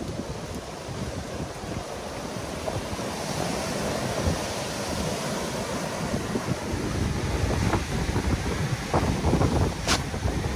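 Ocean surf washing onto a sand-and-boulder beach, a steady rush of breaking waves. Wind buffets the microphone in gusts toward the end, with one brief sharp click.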